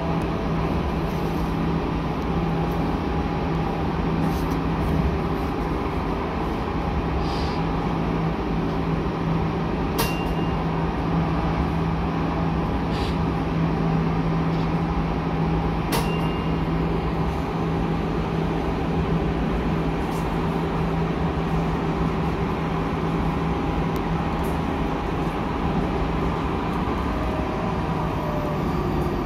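Light-rail tram running along street track, heard from the driver's cab: a steady low motor hum over the rumble of wheels on rail, with two sharp clicks about ten and sixteen seconds in.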